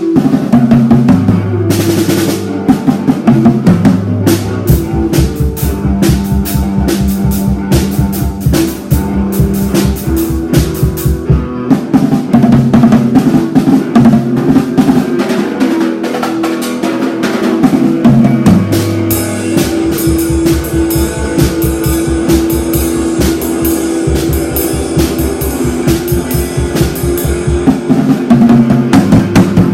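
Loud rock-style music: a drum kit with bass drum and snare keeping a steady driving beat over a sustained bass line that changes note every second or two.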